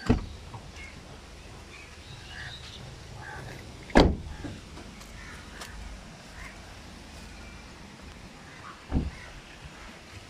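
A Toyota Rush's car door being shut with one loud thump about four seconds in. Lighter knocks come at the start and near the end, with crows cawing in the background.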